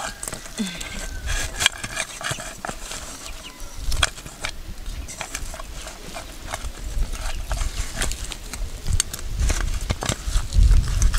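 Fingers tearing apart smoked chicken on an enamel plate: scattered crackles and clicks, over a low rumble that gets louder near the end.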